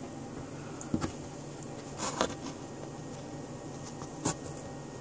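Steady low hum of indoor room noise, like a fan or air conditioner, with a few sharp clicks about one, two and four seconds in.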